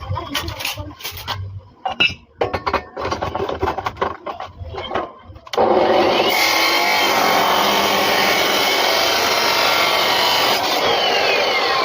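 Irregular knocks and scrapes, then, about halfway in, an abrasive cut-off disc starts cutting steel suddenly and loudly, with a steady high grinding whine.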